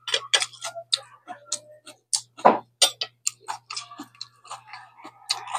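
A person eating: chewing and lip-smacking, with many sharp, irregular mouth clicks.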